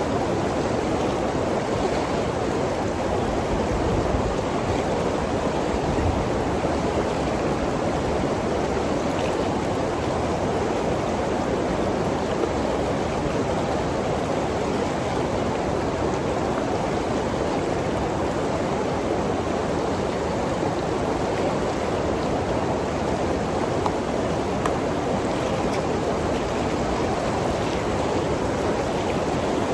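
Waterfall: water pouring and rushing over a river falls in a steady, unbroken rush.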